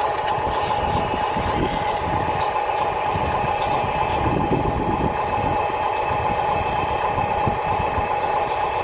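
Excavator running steadily: a constant high whine over an uneven low rumble.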